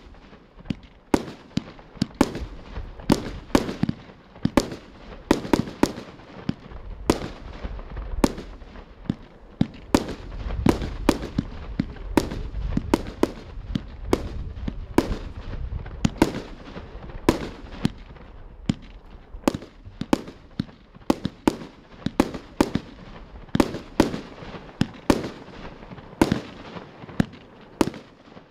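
Pyrotrade Fire Power 100 (CB38-K100-25), a 100-shot 30 mm firework cake, firing continuously: a rapid string of shell launches and bursts, about two sharp bangs a second, over a continuous low rumble.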